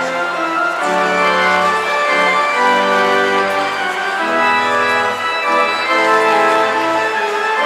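Church pipe organ playing: sustained chords over a bass line that moves every second or so.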